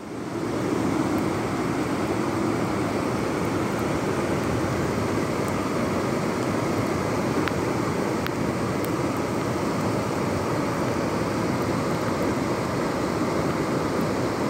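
Muddy floodwater rushing across a paved road in a steady, even rush.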